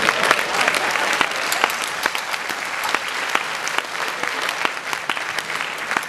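Audience applauding, a dense patter of many hands clapping as the band's song ends.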